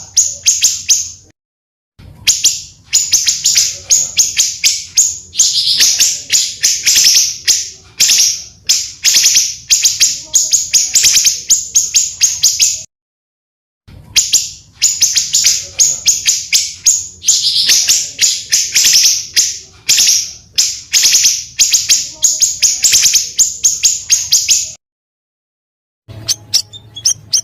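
Small songbirds singing in a dense run of rapid, harsh chirps and long trilling rolls, spliced together from several recordings. It is broken by short dead silences about a second in, about halfway through, and near the end.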